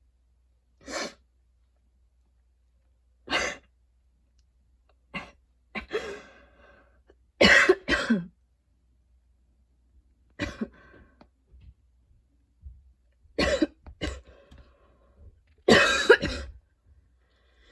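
A woman's coughing fit, brought on by running, an allergy to freshly cut grass and tiredness. Single coughs and short runs of coughs come every one to three seconds, with quiet gaps between. The loudest bouts are about halfway through and near the end.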